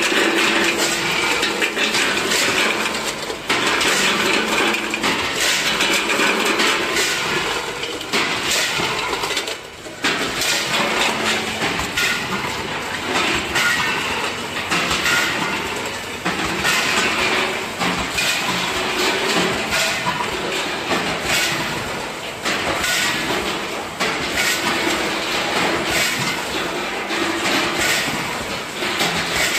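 Automatic candy packing line running: a multihead weigher and vertical form-fill-seal bagger with a continuous mechanical rattle and rapid clacking as wrapped candies drop through the steel weigh hoppers.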